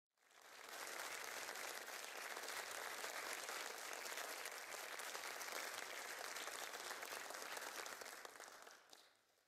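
Audience applauding, a steady even clatter of many hands that fades in over the first second and fades out near the end.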